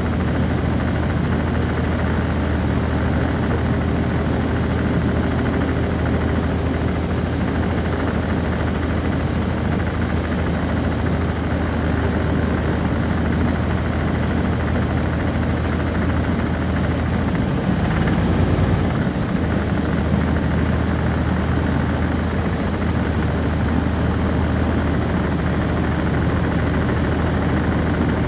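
Cummins ISC diesel engine of a 1999 NovaBus RTS transit bus, heard from inside the bus, running at a steady speed with a constant low drone. About two-thirds of the way through there is a brief louder rumble.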